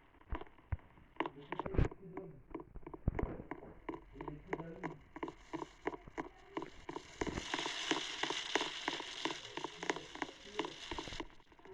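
Rapid crackling clicks and clatter with faint voices underneath, joined for a few seconds in the second half by a steady hiss.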